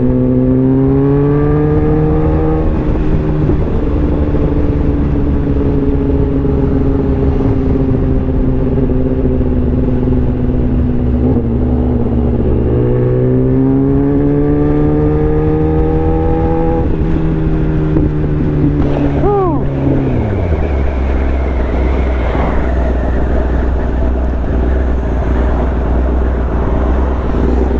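Kawasaki ZX-10R's inline-four engine on the move: the engine note climbs twice and holds a steady cruising note between, then falls away about twenty seconds in to a low steady note as the bike slows.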